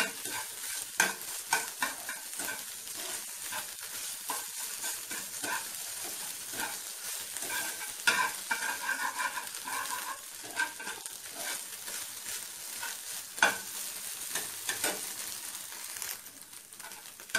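Scrambled egg sizzling in a nonstick frying pan while a metal slotted spatula stirs and scrapes through it, with sharp taps of the spatula against the pan, the loudest about a second in, about eight seconds in and about thirteen seconds in.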